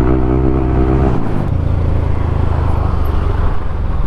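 Motorcycle engine running on the road with wind noise; its note holds, then drops about a second in as the throttle eases.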